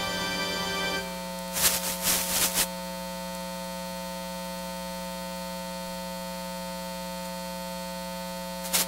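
Steady electrical buzz from the church's sound system: a hum with several overtones, which the people there call static and buzzing. Music stops about a second in, and a short burst of noise comes about two seconds in, with another just before the end.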